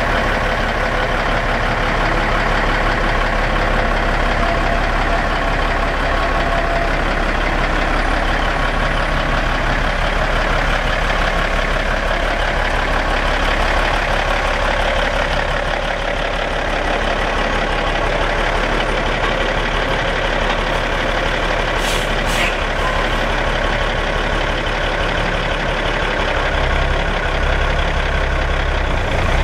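Diesel engine of a 1991 Peterbilt self-loader logging truck running steadily, with two brief sharp clicks about three quarters of the way through.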